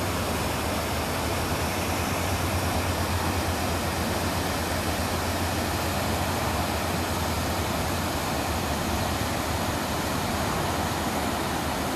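River rapids rushing steadily, a continuous even noise with a low rumble underneath.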